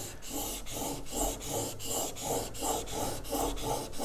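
Steel chisel, held in a honing guide, being rubbed back and forth on a wet water stone of about 800 grit: a gritty scraping in quick, even strokes, about three or four a second. The stone's slurry is grinding the coarse scratches on the bevel down to a finer set.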